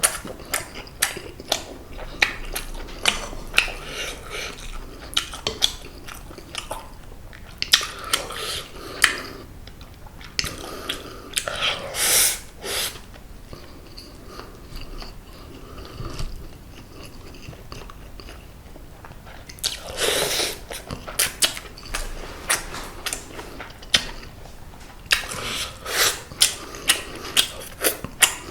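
Close-up eating sounds of seasoned semi-dried pollack (kodari): chewing with many sharp, wet mouth clicks, broken by a few louder, longer bursts of smacking.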